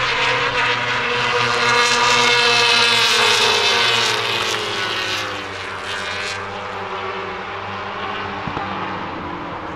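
Superbike racing motorcycle engines at high revs, one bike passing close with its engine note falling in pitch as it goes by. About six seconds in it gives way to a quieter, more distant sound of several bikes.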